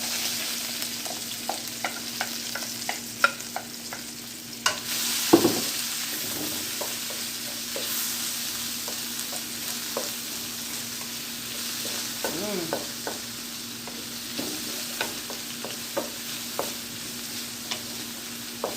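Vegetables stir-frying in hot oil in a pot, a steady sizzle that grows louder about five seconds in, with a stirring utensil clicking and scraping against the pot throughout.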